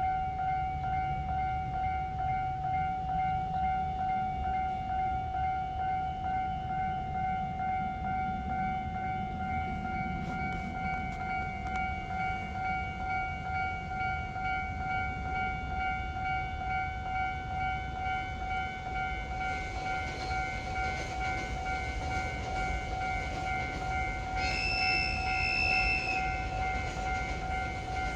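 Level-crossing warning bell ringing continuously in a steady pulsing rhythm while a train runs past with a low rumble, its wheel noise growing louder in the last third. Near the end a train horn gives one high-pitched blast of about a second and a half.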